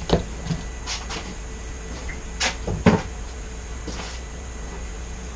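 Scattered knocks and clunks of things being handled and set down on a work table, the two loudest coming close together about two and a half to three seconds in.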